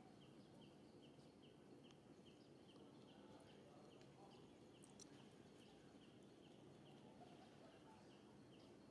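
Near silence: faint outdoor background noise with a short, high chirp repeating steadily about three times a second.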